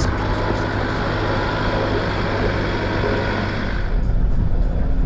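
Vehicle engine running steadily with a low hum; the rushing noise above it eases off about four seconds in.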